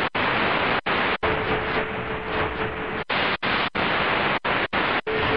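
Shortwave radio static from a Qodosen DX-286 receiver being tuned across the 31-metre band. The hiss drops out for an instant about nine times as the tuning steps from channel to channel. A steady low whistle comes in about a second in, stops near the middle, and returns near the end.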